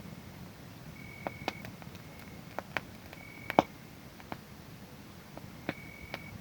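Wood fire crackling with scattered sharp pops, the loudest a little past halfway. A cricket sings a short high trill about every two seconds.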